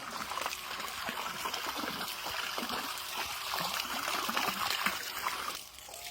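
Water splashing steadily out of the outlet hose of a 12-volt bilge pump running off an ATV battery, easing off near the end.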